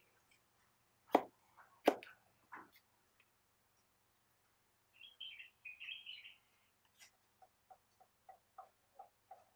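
Kitchen knife chopping through a green pepper onto a banana leaf over a wooden bench: two sharp chops about a second in and just before two seconds, and a lighter one after. Later a brief high chirping, then a regular run of short ticks, about three a second.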